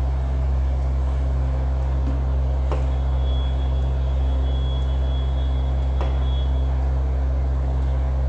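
A steady low hum from a running motor or electrical appliance fills the room, with faint strokes and a thin high squeak of a marker on a whiteboard from about three to seven seconds in.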